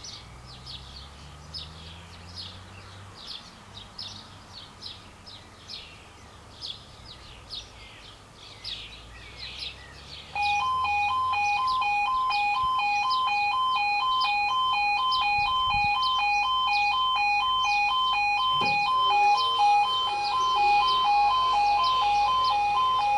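Birds chirping for about ten seconds. Then a level crossing's electronic warning alarm switches on abruptly and sounds loudly and steadily, alternating between two pitches about one and a half times a second, as the crossing starts its warning sequence for an approaching train.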